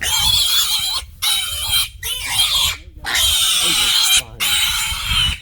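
Kunekune piglet squealing loudly in distress while held on its back for castration: about five long, high-pitched screams, each broken by a brief pause for breath.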